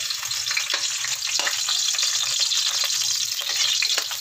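Garlic cloves sizzling in hot cooking oil in a metal wok: a steady hiss, with short scrapes and clinks from a metal ladle stirring them against the pan.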